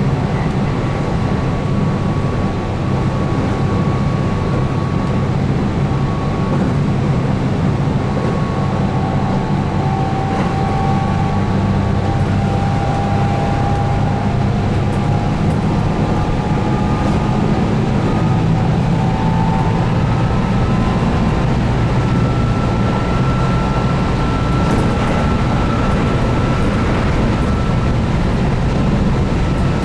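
Keihan 8000 series electric train running at speed, heard from inside the car: a steady rumble of wheels on rails with the whine of its DC traction motors rising slowly in pitch.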